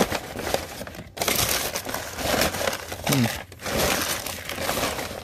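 Paper crinkling and rustling in irregular bursts as wrapped items are handled.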